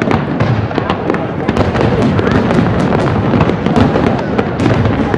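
Aerial fireworks shells bursting in a dense, unbroken barrage of many sharp bangs one after another.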